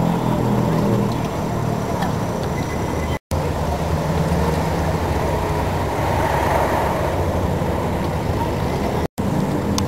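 Steady outdoor street noise, a low rumbling hum under a hiss, cut by two brief dropouts in the recording, about three seconds in and again near the end.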